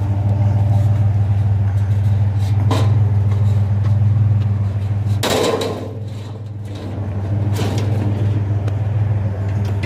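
A truck engine idling steadily, with a few knocks and one louder clatter about five seconds in.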